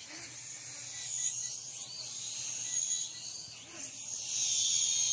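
Small toy quadcopter drone's propellers whining, the pitch rising and falling as it flies back and forth, louder from about a second in.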